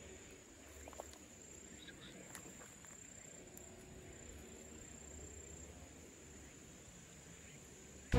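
Faint, steady, high-pitched insect trill over quiet outdoor background, with one small click about a second in.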